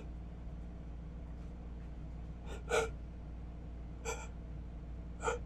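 A person's sharp, gasping in-breaths, three of them about a second and a half apart: the build-up of a sneeze that won't come out.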